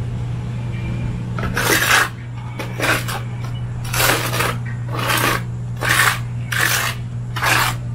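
A steel trowel scraping wet parging mix across a concrete foundation wall in about seven strokes, roughly one a second, as the patch is spread and smoothed.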